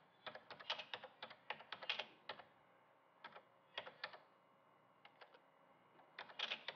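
Typing on a computer keyboard: irregular runs of quick key clicks, thinning out to a few scattered taps in the middle before a fast run near the end.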